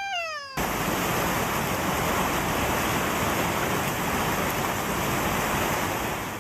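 A loud, steady rushing noise, even and without any tone, cuts in about half a second in and stops abruptly at the end. Just before it, the tail of a single pitched call glides up and then down.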